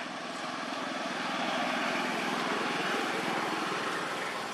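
Motor vehicle engine running with a steady hum, swelling to its loudest about halfway through and easing off, as of a vehicle passing.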